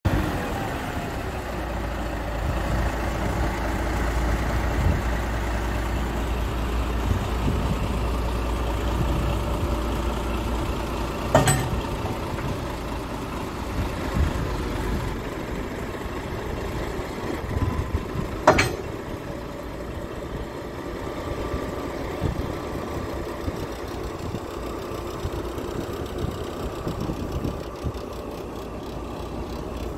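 Komatsu D375A bulldozer's diesel engine idling steadily. Two sharp clicks come about seven seconds apart near the middle.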